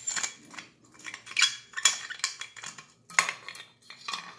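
An old military-type aluminum canteen being handled while its black screw cap is twisted off: a run of sharp metallic clinks and rattles, loudest about a second and a half in and again just after three seconds.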